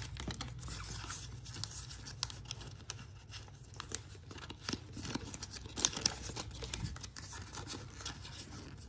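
Pokémon trading cards being flipped through in the hands, card edges sliding and flicking against each other in scattered short clicks and scrapes.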